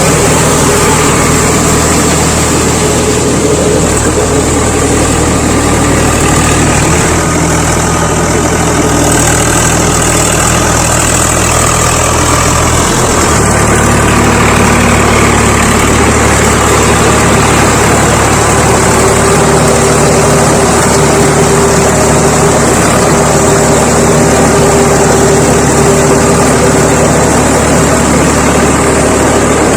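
Tractor diesel engine running steadily, its note shifting about 13 seconds in.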